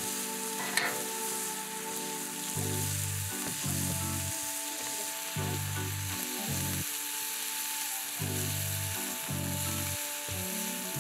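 Pork belly and kimchi sizzling in a pan over a fire, with a steady frying hiss. Low bass notes of background music come and go underneath from about two and a half seconds in.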